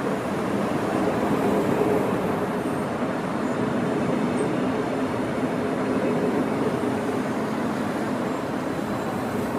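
Thurbo Stadler GTW electric multiple unit rolling past: steady rumble of wheels on rail with a low, even hum from the running gear.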